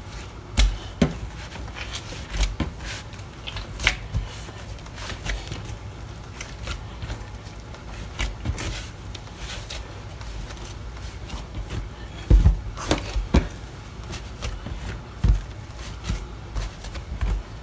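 Hands working bread dough for bolillos: irregular soft slaps, rustles and small knocks, with a few heavier thumps about two thirds of the way through.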